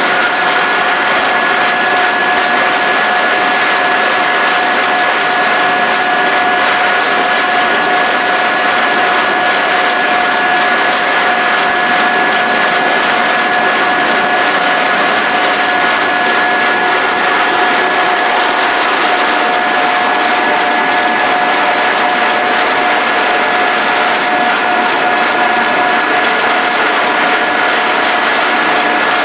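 Electric-driven pellet mill running under load: a loud, steady mechanical din from the motor, gearbox and die, with a constant high whine on top. It carries the hiss and patter of pellets pouring out of the discharge chute.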